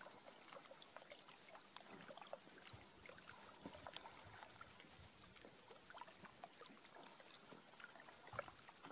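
Near silence: faint lapping of small waves at a rocky lakeshore, with scattered soft ticks.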